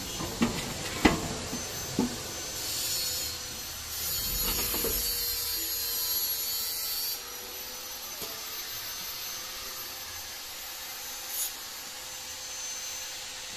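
A few sharp knocks in the first two seconds, then two bursts of hissing, the second about three seconds long, and one short hiss near the end, over a faint steady tone.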